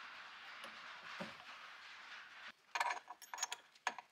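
Steel transmission parts of a Honda CR125R two-stroke engine clinking and knocking against each other and the aluminium crankcase as they are set in place. There are several sharp clicks in the second half, after a steady hiss that stops abruptly about two and a half seconds in.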